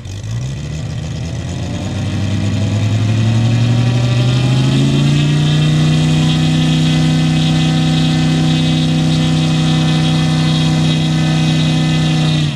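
RC model airplane engine running on the ground, its pitch climbing over the first five seconds or so as it is throttled up, then holding a steady high-revving tone.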